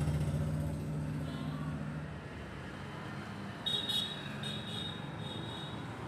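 Road traffic: a vehicle engine running with a low hum that fades over the first two seconds. A little past halfway, a high-pitched tone starts, beeping in short repeated pulses.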